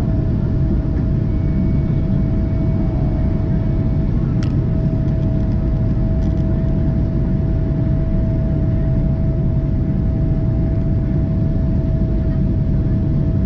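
Cabin noise of a Boeing 777-200ER climbing out after takeoff, heard from a window seat by the wing: its Rolls-Royce Trent 892 engines and the rushing air make a loud, steady rumble with a steady mid-pitched whine over it. A single brief click sounds about four and a half seconds in.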